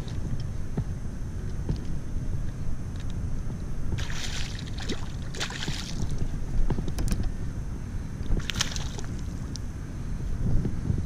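Wind buffeting the microphone in a steady low rumble, with three short hissing bursts about four, five and a half, and eight and a half seconds in.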